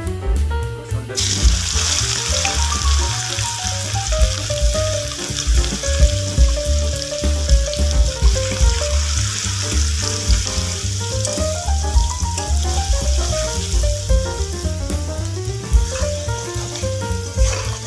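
Sliced onions frying in hot oil with whole spices in a wok. The sizzle starts suddenly about a second in as the onions go into the oil, then carries on steadily while they are stirred with a spatula. Background music with a bass line plays underneath.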